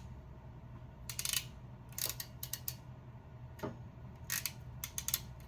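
Ratcheting wire crimper squeezed empty, its ratchet pawl clicking in several short runs of clicks.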